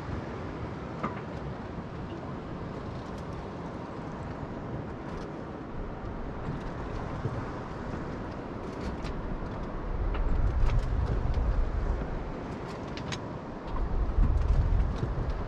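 Sailboat's inboard engine running steadily as the boat motors under way. Two gusts of wind buffet the microphone in the second half.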